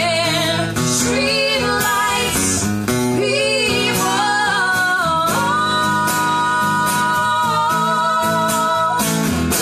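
Live cover band playing a rock song: singing over electric guitar and a full band, with one long held sung note in the second half.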